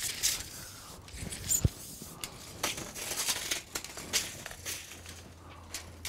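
Irregular clicks, scrapes and rustles of a measuring tool being handled while the wall's height is measured, with a dull knock about a second and a half in.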